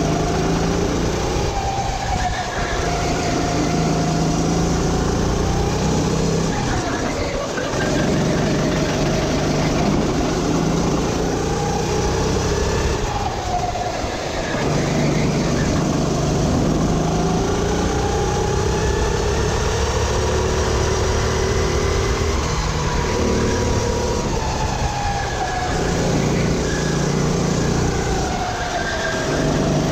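Sodi RT8 rental kart's four-stroke engine heard from the driver's seat at racing speed, its pitch climbing as it revs out along the straights and dropping each time the driver brakes for a corner, over and over through the lap.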